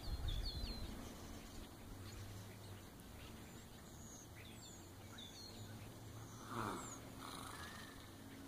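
Faint rural outdoor ambience: distant birds chirping here and there over a low wind rumble, with one brief louder falling sound about two-thirds of the way through.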